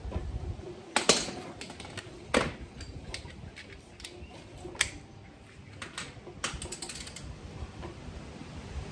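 Wrench working the bolts of a trailer coupling: irregular sharp metallic clicks and clinks. The loudest come about a second in and around two and a half seconds, with a quick run of clicks a little after six seconds.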